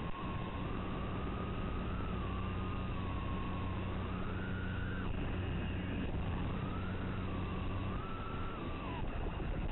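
Cerberus mini FPV quadcopter's motors whining in flight, the pitch rising and falling irregularly as the throttle changes, over a steady low hum.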